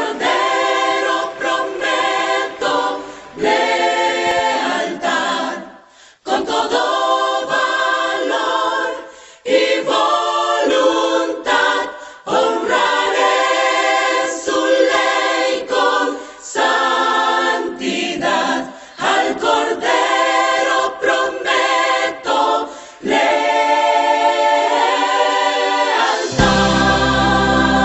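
Choir singing a hymn chorus in Spanish without accompaniment, in phrases separated by short breaths. About 26 seconds in, a low instrumental bass part joins.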